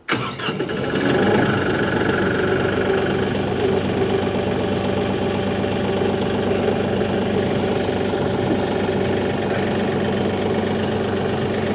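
Kioti compact tractor's diesel engine starting and rising within about a second to a steady idle, left running to warm up.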